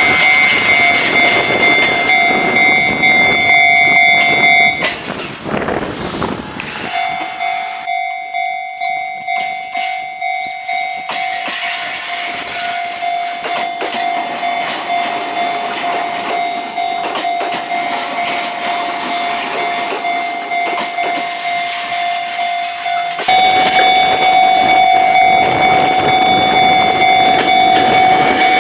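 Japanese railway level-crossing alarm ringing in a steady, even two-tone rhythm, with a gap of about two seconds around five seconds in. A train is running past with a loud rushing rail noise for the first few seconds, and the noise comes back near the end.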